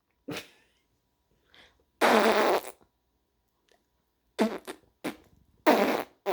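A series of fart-like blasts with a low buzzing pitch. The loudest comes about two seconds in and another near the end, with short sputters between.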